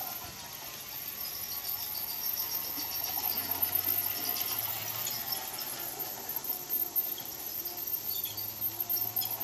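G-scale Thomas the Tank Engine model locomotive running on garden railway track: a low motor whir under repeated high squeaks from the old, worn train.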